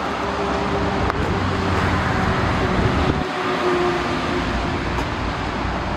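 A heavy diesel engine running steadily at idle, a constant low rumble with a steady hum.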